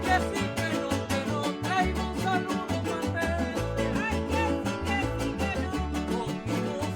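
Son jarocho music: jaranas strummed in a fast, even rhythm over deep plucked bass notes, with a melody line gliding above.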